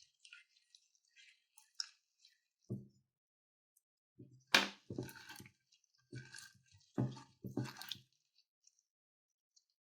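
Slime being squeezed and worked in several short, wet-sounding bursts, the loudest about four and a half seconds in.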